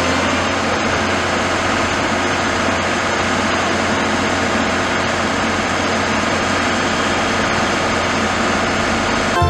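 A heavy vehicle's engine running steadily, with a strong low hum under even road-like noise.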